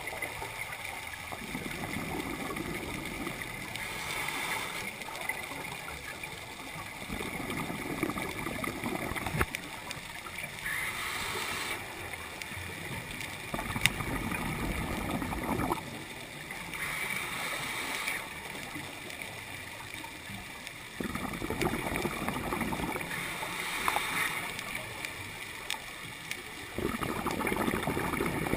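A scuba diver breathing underwater through a regulator: exhaled bubbles gurgle in low rumbling spells about every six or seven seconds, alternating with a higher hiss.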